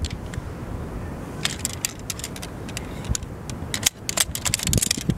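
The 10 mm DAC aluminium pole frame of an Alpkit Vagabond camping chair being lifted out and unfolded by hand, its pole sections and hub clinking and rattling against each other in quick irregular clicks.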